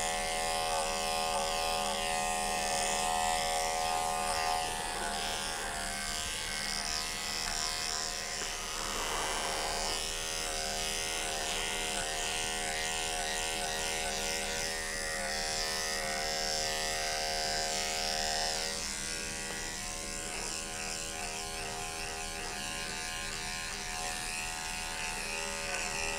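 Electric dog-grooming clipper with a #5 blade running steadily with a buzzing hum as it shaves a Maltese's knotted, matting coat down short. Its tone shifts a little now and then as the blade works through the hair.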